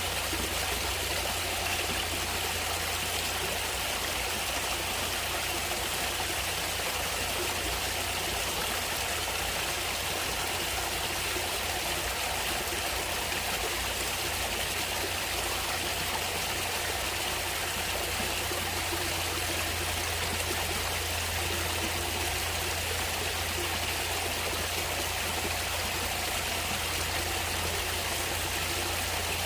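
Natural stream water flowing and trickling steadily, an even rushing hiss with a steady low rumble beneath it.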